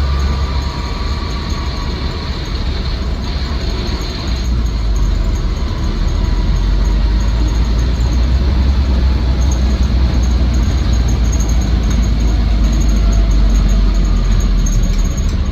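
1962 Land Rover Series IIa 109's 2.25-litre four-cylinder petrol engine and drivetrain running under way, with road noise, in a steady low rumble. The rumble eases a little in the first few seconds, then builds and holds.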